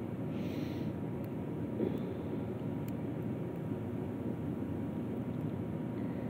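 Steady low rumbling background noise with a faint constant hum, with a brief faint hiss about half a second in and a couple of faint light ticks.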